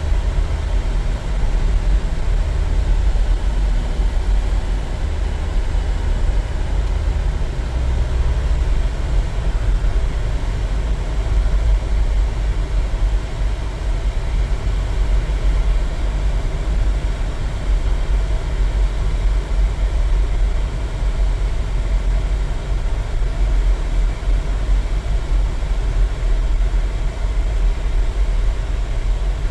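Steady low rumble of a car on the road, heard from inside the cabin: engine and tyre noise with no sudden events.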